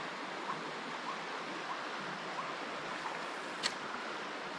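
Shallow river flowing steadily, a soft even rush of water, with a single sharp click a little after the middle.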